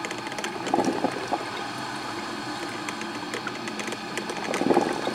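Black and Decker drip coffee maker brewing: hot water bubbling and spluttering through the machine with a steady crackle. Louder splutters come about a second in and near the end.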